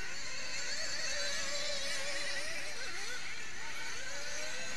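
Several 1/8-scale nitro buggy engines running at high revs together, a layered high-pitched whine whose pitches keep rising and falling as the cars accelerate and slow.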